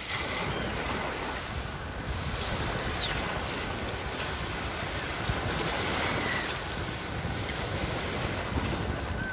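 Sea waves washing steadily on the shore, a continuous rushing surf with wind on the microphone.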